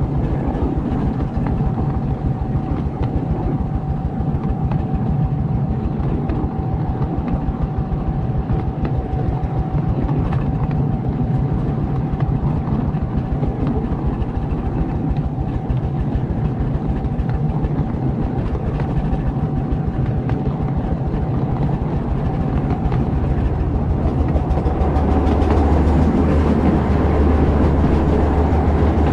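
Miniature railway train running along the track, heard from the front of the train: a steady rumble of wheels on rail with rapid clicking and a faint steady whine. In the last few seconds the rumble grows louder and deeper.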